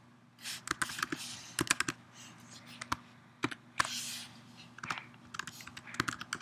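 Typing on a computer keyboard: irregular runs of sharp key clicks with short pauses between them, as an email address is entered.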